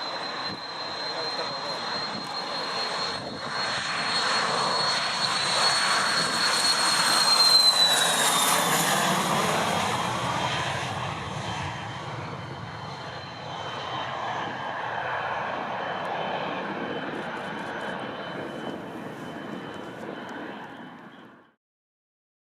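Cessna Citation 560 XL's twin turbofan engines running with a high whine over a broad rush. The jet passes about eight seconds in, where it is loudest and the whine drops in pitch, then fades away. The sound cuts off abruptly near the end.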